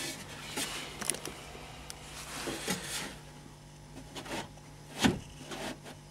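Scattered light knocks, clicks and rubbing as loose car door glass and its window-regulator rail are handled inside the opened door, with one sharper knock about five seconds in. The glass no longer seems to be gripped by the regulator.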